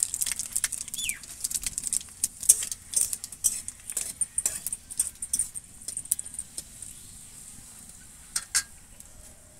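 Panch phoron seeds crackling and popping in hot mustard oil in a metal kadai, with a metal spatula scraping and clinking against the pan as the seeds are stirred. The crackling is dense at first and thins out after about seven seconds. A bird chirps once about a second in.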